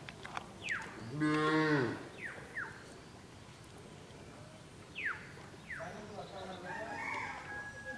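A cow moos once, a single call of about a second that falls slightly in pitch at the end.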